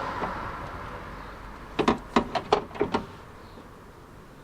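A quick run of about seven sharp clicks and knocks lasting about a second, from parts and tools being handled on a car's rear side door during a lock change. Before them, a rushing noise fades away.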